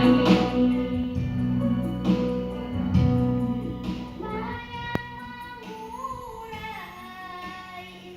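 A child singing a song over instrumental accompaniment, the music growing gradually quieter.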